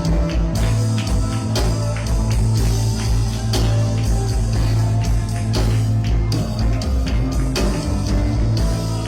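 Rock music with electric guitar, bass and drum kit playing steadily.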